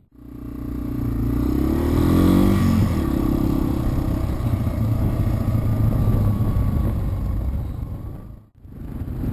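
Small off-road vehicle engine running under way, its pitch rising briefly about two seconds in, with wind noise over it. The sound drops out sharply for a moment near the end.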